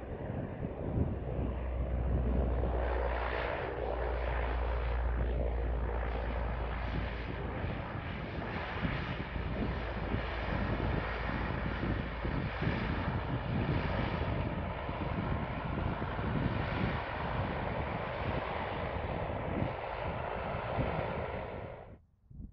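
Airliner landing close by: steady engine and air noise that cuts off suddenly near the end.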